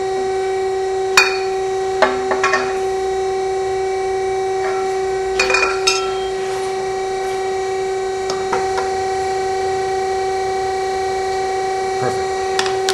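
Metal clanks and knocks as a bending tool and cheater bar are worked against an aluminium propeller blade to adjust its pitch by hand: a sharp one about a second in, a cluster near the middle and lighter ones later. Under them runs a steady machine hum with a held tone.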